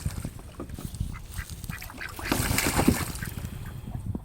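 Domestic ducks quacking and splashing as they bathe in a small pond, with a louder burst of splashing a little past halfway.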